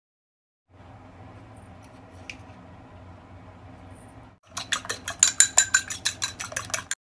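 A spoon stirring flour in a steel bowl, faintly, then eggs beaten in a ceramic bowl, the utensil clinking rapidly against the bowl at about eight clicks a second for the last two seconds or so.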